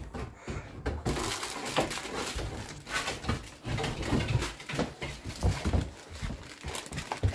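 A plastic bag rustling and crackling as a Rottweiler carries a bag of oranges in its mouth, mixed with a jumble of knocks and thumps. The rustling starts about a second in.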